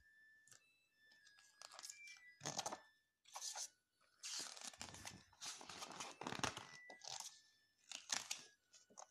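Pages of a large picture book being turned by hand: paper rustling and sliding in several bursts, the longest in the middle.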